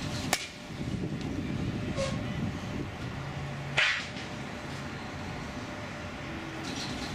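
Batting practice in a cage: a baseball bat cracks sharply against a pitched ball about a third of a second in and again at the very end, with a louder, rougher burst about four seconds in, over a steady low rumble.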